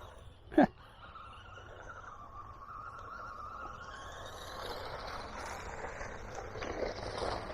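The Haiboxing Protector RC car's small electric motor whines as it drives over rough ground with tyre noise, growing gradually louder. A brief sharp sound comes about half a second in.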